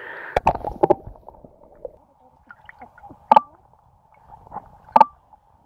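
Stream water gurgling and sloshing close to the microphone, with a quick cluster of splashes and clicks in the first second and two sharp knocks later.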